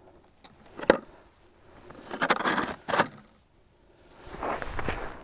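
Handling noises from someone kneeling at an ice hole: a sharp click about a second in, then two spells of rustling and scraping from clothing and snow, with another click near the middle.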